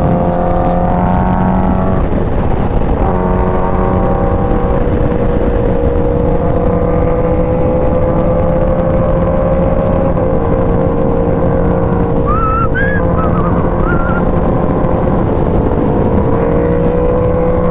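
Kawasaki Ninja H2's supercharged inline-four running at a steady freeway cruise under heavy wind and road noise. The engine note holds a near-constant pitch, easing off briefly about two seconds in, dipping a little around ten seconds and climbing again near the end.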